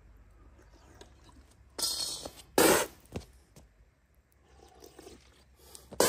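A shoe scraping and stamping out the embers of a small wood fire on concrete: two short gritty scrapes about two seconds in, the second the loudest.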